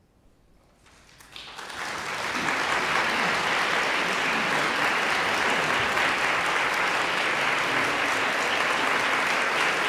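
Near silence for about a second, then a large audience's applause swells in over the next two seconds and holds steady.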